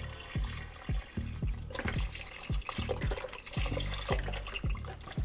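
Vegetable broth pouring out of a carton into a stainless steel stockpot, coming out in a run of short glugs, about two a second, each dropping in pitch.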